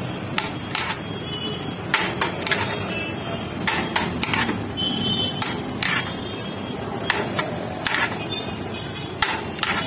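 Metal ladle knocking and clinking against a large aluminium biryani pot while scooping rice into a foil-lined bucket: irregular sharp knocks, some with a brief metallic ring, over steady background noise.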